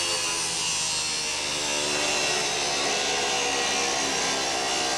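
Angle grinder with a cut-off disc slicing through the metal body of a London taxi: a steady motor whine over the grating noise of the cut.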